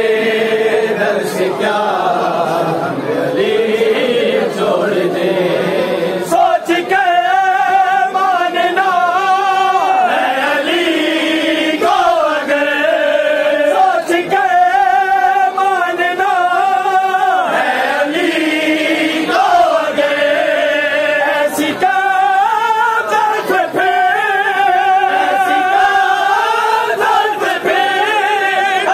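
A group of men chanting a mourning chant (noha) together without instruments. From about six seconds in, one clear voice stands out above the group, singing in repeated phrases.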